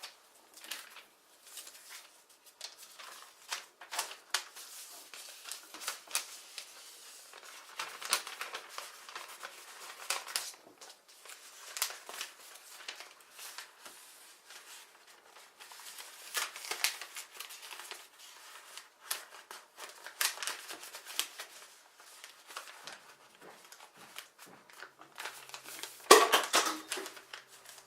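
A sheet of paper being folded and creased by hand into an origami bird: irregular crinkling and rustling with sharp creasing strokes, and a louder rustle near the end.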